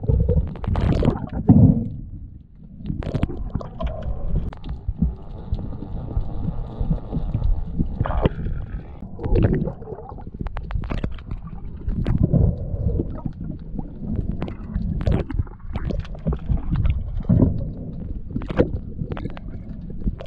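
Muffled underwater sound picked up by a submerged camera: low rumbling and gurgling of moving water, swelling every few seconds, with scattered sharp clicks.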